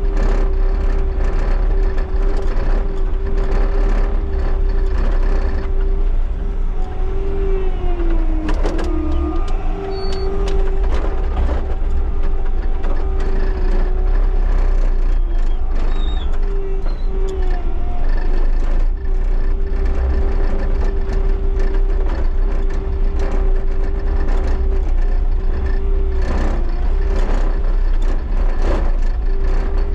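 Bobcat T77 tracked skid steer's diesel engine running steadily with a constant high whine over a deep rumble; the whine sags in pitch briefly about nine seconds in and twice more later, with scattered knocks and clunks.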